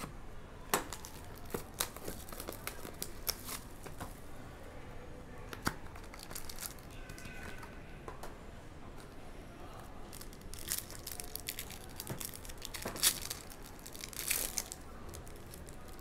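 A trading-card hobby box being opened and the card pack inside torn open: crinkling and tearing of the pack wrapper with scattered sharp clicks and taps, busiest in a cluster near the end.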